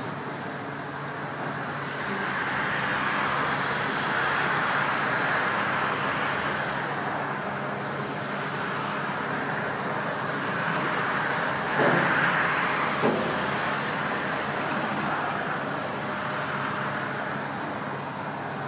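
Steady engine rumble with two sharp knocks about a second apart a little past the middle.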